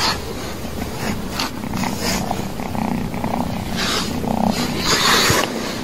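A kitten purring steadily, with short bursts of rustling from handling.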